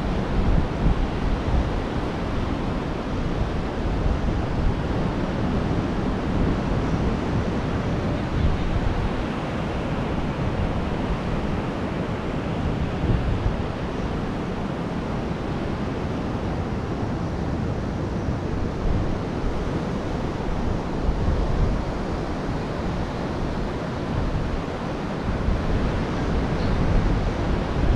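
Ocean surf washing onto a sandy beach as a steady rush, with wind buffeting the microphone.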